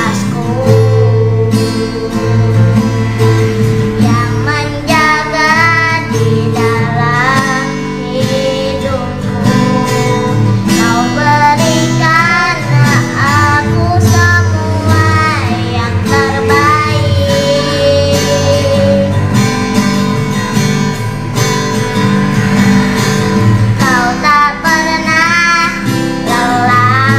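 A child singing a slow solo song with vibrato over a karaoke backing track with guitar, the voice coming in phrases with instrumental stretches between.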